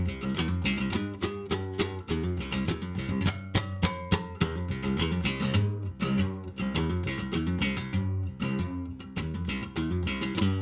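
Guitar music: quickly picked notes over a moving bass line.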